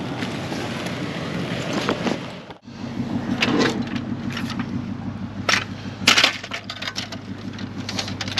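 Black plastic garbage bags rustling as they are handled, then, after a cut, a metal hand truck clattering and knocking as it is loaded into a vehicle, with the loudest knock about six seconds in. A steady low hum runs underneath.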